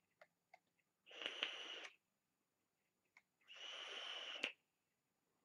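Two hissing puffs, each about a second long, on an electronic cigarette box mod with a dripping atomizer fired at 40 watts, with a few faint clicks between them.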